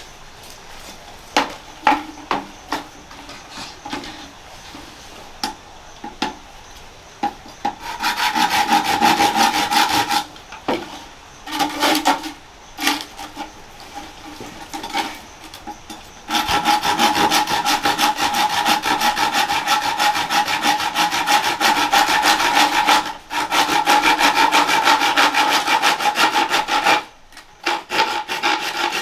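Hand saw cutting wood: a short run of sawing about eight seconds in, then steady sawing through most of the second half. Scattered knocks and clatter of wood being handled come before.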